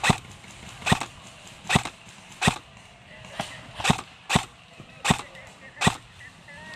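Airsoft gun firing single shots: nine sharp cracks at a steady pace of about one every three-quarters of a second, one of them fainter than the rest.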